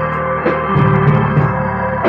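Live rock band playing: long held, ringing notes over an electric bass line, with a drum and cymbal hit about half a second in.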